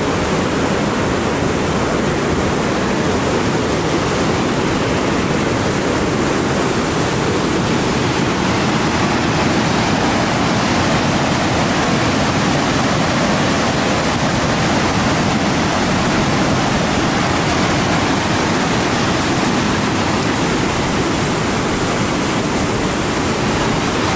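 River in flood rushing through whitewater rapids, a loud, steady, unbroken rush of water, the river running high over its banks with rain and snowmelt.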